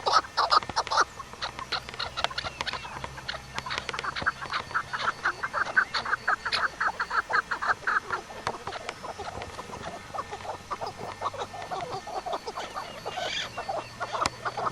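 Waterfowl calling in quick runs of short, repeated calls, several a second.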